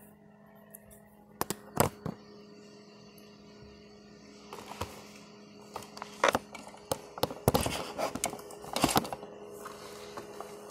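Toy packaging being handled and opened: scattered knocks, clicks and crackling of the cardboard box and plastic tray, with a couple of sharp knocks about two seconds in as the phone is set down. A steady low hum runs underneath.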